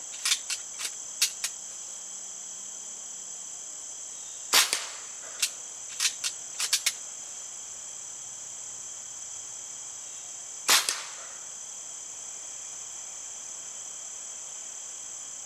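Two shots from a Diana Bandit .22 PCP air pistol, about six seconds apart, with several lighter clicks between them, over the steady high chirring of crickets.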